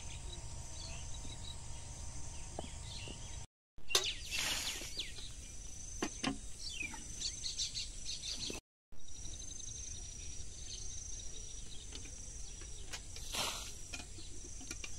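Rural outdoor ambience of birds chirping over a steady high insect drone, with brief rushes of splashing water about four seconds in and near the end as water is tipped from a metal bucket. The sound cuts out completely twice for a moment.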